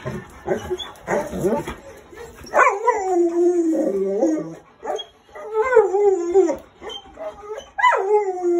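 Newfoundland dog howling and whining to be let out: a few short yelps, then three long drawn-out howls, each starting high and falling.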